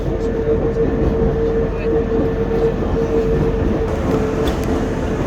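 Electric cogwheel railcar of the Pilatus Railway running slowly down the steep rack line. A steady whine sits over a continuous low rumble of the car.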